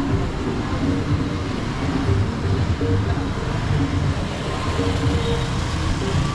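Town street traffic, mostly motorcycle engines running and passing, as a steady mixed noise.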